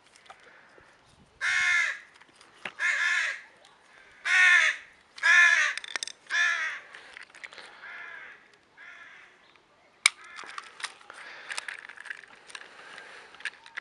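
A crow cawing: five loud, harsh caws about a second apart, each about half a second long, then a few fainter ones. A sharp click comes about ten seconds in, followed by faint clicking.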